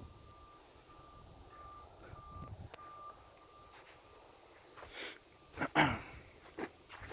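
Faint repeated beeping of a vehicle's reversing alarm, dying away about halfway through, followed by a few sharp knocks near the end, the loudest just before the end.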